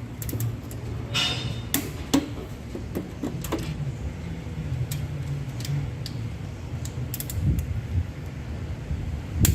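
Hand tools and metal engine parts clinking and clicking during engine reassembly: irregular sharp metallic clicks over a steady low hum.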